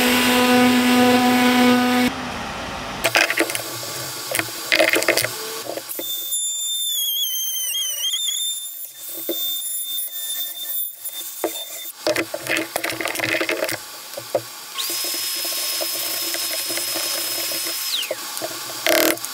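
Power tools working wood in several short takes: a random-orbit sander humming steadily on a hardwood panel for the first couple of seconds, knocks and clatter, then a compact router's high-pitched motor whine from about 6 to 12 s, its pitch sagging briefly as it bites into the board. Near the end another high whine with a rush of noise runs for about three seconds and falls away as the tool winds down.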